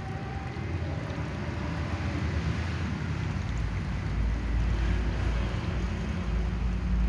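Wind buffeting the microphone: a steady outdoor hiss with a low rumble that grows stronger about four seconds in.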